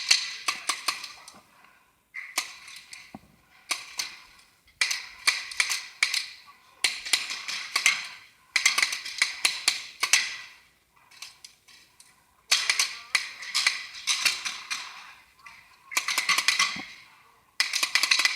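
Paintball markers firing in rapid strings of sharp pops, coming in about eight or nine bursts of a second or two each with short gaps between them.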